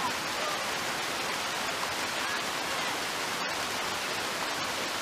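Steady rush of a shallow, rocky creek flowing over stones: an even hiss of running water.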